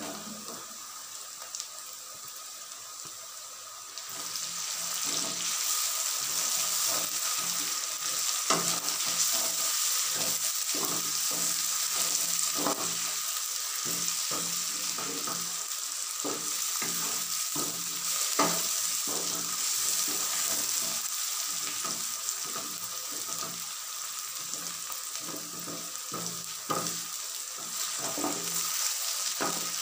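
Chopped tomatoes and green chillies sizzling in hot oil with fried onions in a pot, stirred with a wooden spatula that scrapes the pan in regular strokes. The sizzle picks up and grows louder about four seconds in.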